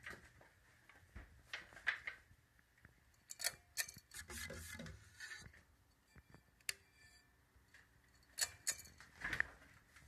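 A 1987 Kmart Alaska ceiling fan running with a faint steady hum, under irregular sharp clicks and knocks that come in clusters about two seconds in, around three and a half to four seconds, and again near the end.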